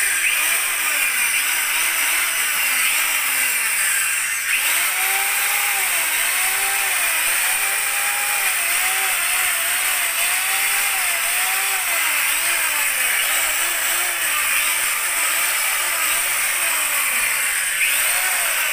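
1,050-watt Makita electric circular saw running with no load, its motor and blade giving a loud steady whine. About four and a half seconds in the sound briefly dips and jumps back, and after that a lower tone rises and falls again and again.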